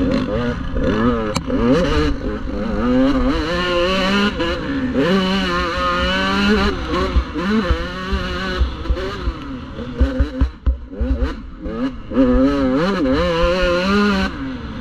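Dirt bike engine heard close up from on board, revving up and down over and over as the rider accelerates, rolls off and shifts along the track. About ten seconds in the throttle drops away briefly and a few sharp knocks and clatters come through before the engine picks up again.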